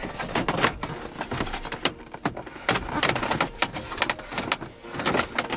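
Irregular clicks, taps and rustling of hands handling a hand tool and plastic car interior trim, with the sleeve brushing close past the microphone.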